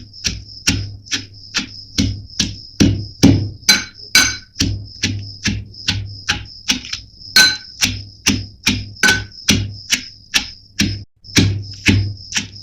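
A pestle pounding raw onion with black pepper and ajwain in a mortar: steady repeated strikes, about two to three a second, each with a short ringing note.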